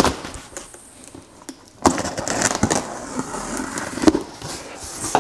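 Knife blade slitting the packing tape along a cardboard box's seam: a scratchy, rasping cut lasting about two and a half seconds, starting about two seconds in. A short click comes at the very start.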